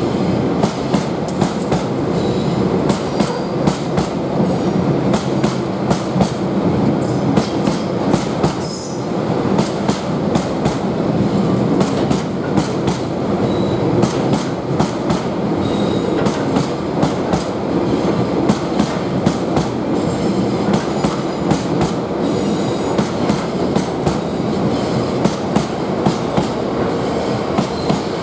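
Loaded freight wagons of a heavy stone train rolling past, their wheels clicking steadily over rail joints with a continuous rumble and brief faint wheel squeals.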